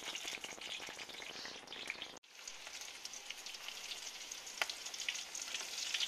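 Hot oil sizzling in a wide steel pan over a gas burner, first around two flat pale slabs, then around floured fish pieces after a brief break about two seconds in. It is a steady fine crackle with one sharper pop a little past the middle.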